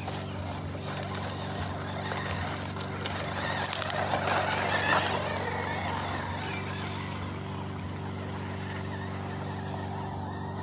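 MN78 RC crawler, a 1/12-scale Jeep Cherokee XJ with metal driveshafts and drivetrain, driving through sand and gravel. It gets louder as it passes close, about four seconds in, over a steady low hum.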